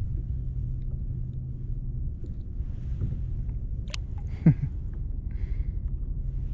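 Steady low rumble of wind on the microphone, with a sharp click about four seconds in and a short falling squeak just after it as the caught fish is handled.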